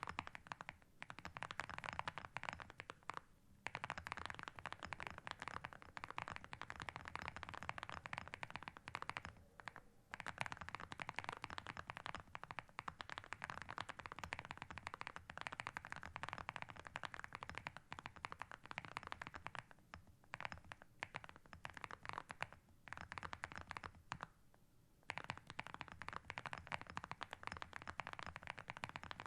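Steady fast typing on a Meletrix Zoom75 mechanical keyboard fitted with Vertex V1 switches and Cerakey ceramic keycaps: dense runs of key clacks broken by a few short pauses, the longest about a second long near the end.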